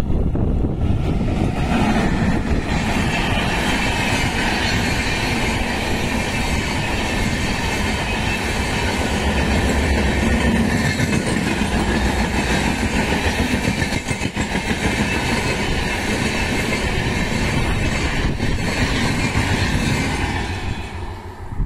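Express train behind a WAP7 electric locomotive passing close at speed: a steady, loud rush of coach wheels on the rails. The level dips briefly near the end.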